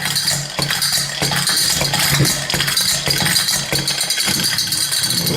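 A hand-held toy spinner rattling and clinking as it is spun, a steady hum running underneath.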